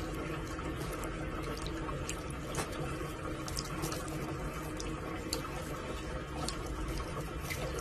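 Water from a tap running steadily into a bathroom sink, with a few faint ticks.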